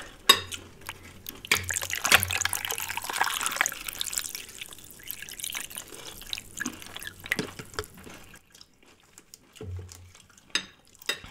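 Liquid poured from a plastic bottle into a glass held up high, a rushing, splashing stream for the first four or five seconds that tapers off into scattered drips and small clicks.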